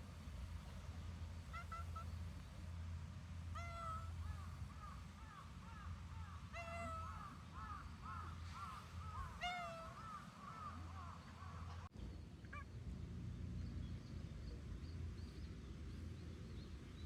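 Birds calling: a run of short, repeated pitched chirps lasting several seconds, over a steady low hum.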